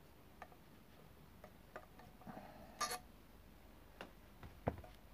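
Light scattered clicks and taps of a screwdriver and small bolts against a motorcycle stator cover while the new stator's mounting bolts are started. A sharper clack comes about three seconds in, and two duller knocks follow near the end.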